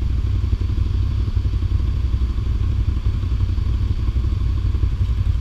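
Small off-road engine idling steadily, with a fast even low chug.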